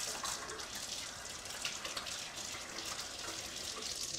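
Kitchen faucet running into the sink while hands are rinsed under it. The tap is shut off right at the end.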